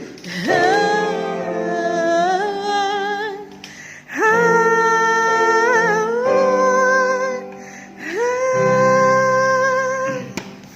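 A solo voice singing three long held notes, each a few seconds long, sliding up into the pitch and wavering slightly. It is vocal practice by a singer who has flu and a cough, which the singer says makes the voice off-key.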